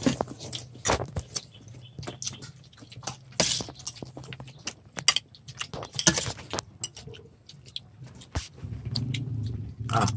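A metal spoon clinking and scraping against a stainless steel serving tray as food is scooped: many short, irregular clinks. A steady low hum runs underneath and grows louder near the end.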